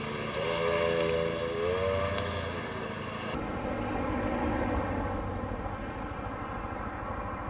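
Steady engine and road noise of a moving delivery vehicle. From shortly after the start to about two seconds in, a wavering tone that rises and falls rides over it.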